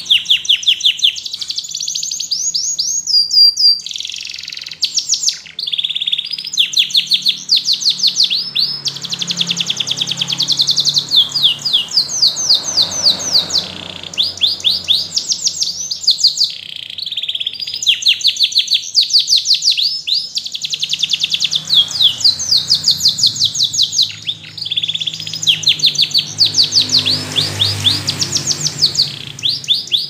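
Domestic canary singing a long song of rapid trills and rolls: series of fast repeated high notes that change speed and pitch from phrase to phrase, broken by a few short pauses.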